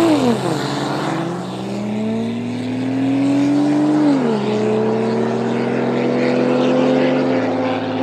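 Car engine under load, its pitch climbing steadily and then dropping sharply about four seconds in, as at a gear change, before holding a nearly steady note.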